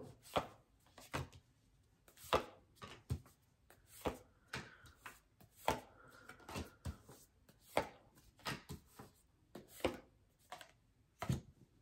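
Tarot cards being drawn from the deck and laid one by one on a wooden tabletop: a run of irregular light taps and slaps.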